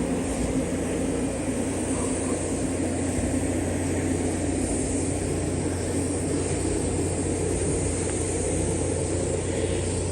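An engine idling steadily: a constant low hum with an even mechanical haze over it, with no change in speed.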